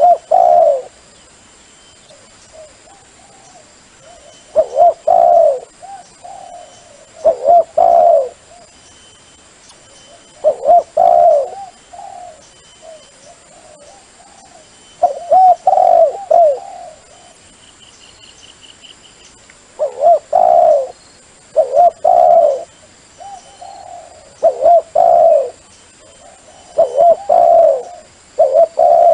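Dove cooing, a phrase of a few low coos repeated every two to three seconds, the calling used to lure wild doves to a decoy. A brief high chirp from another bird comes about two-thirds of the way through.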